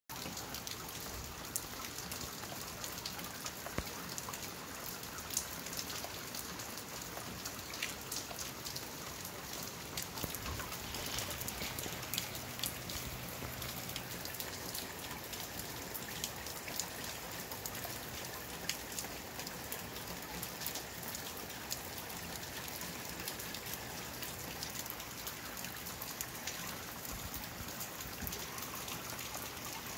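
Steady rain falling, with many close raindrops ticking sharply over the even hiss.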